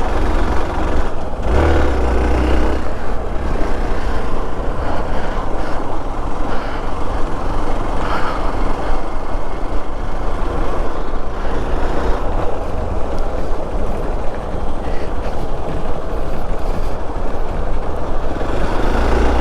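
Motorcycle being ridden along a road: a steady, noisy rush of riding sound with a deep rumble underneath.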